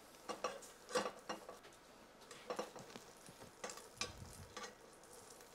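A wooden spatula stirring dry chocolate chips in a stainless-steel bowl over a pan of water, to melt them. It makes a series of faint, irregular scrapes and clatters.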